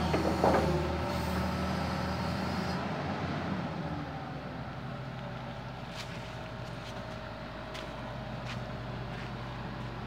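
Hydraulic excavator's diesel engine running steadily, getting quieter over the first few seconds as its higher hiss falls away about three seconds in. A few faint sharp clicks follow later.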